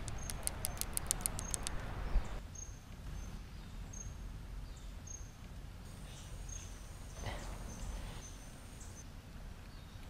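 Tropical forest ambience. A rapid run of sharp clicks for the first two seconds, then short high-pitched chirps and, for a few seconds near the end, a thin steady high whine of insect or bird calls.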